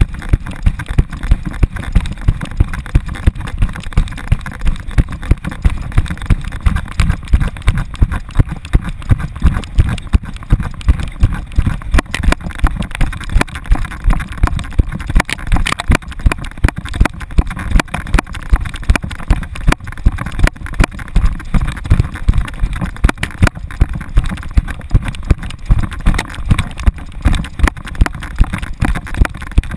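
An American Staffordshire Terrier running flat out with a camera harnessed to its back: its strides jolt the camera in a steady rhythm of thuds, about three a second, over a constant rushing noise.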